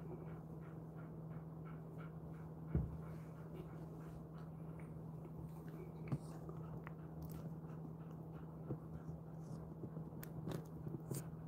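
Quiet room with a steady low hum, faint small ticks, and one soft thump about three seconds in.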